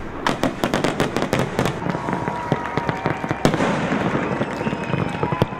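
Fireworks display: a rapid, irregular series of bangs and crackling pops. A steady high tone joins in about two seconds in.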